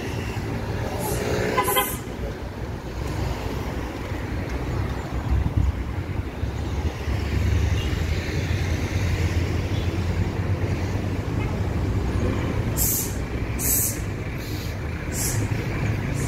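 Steady low rumble of road traffic, cars and buses running along the boulevard, heard from the sidewalk. A few short high hisses come near the end.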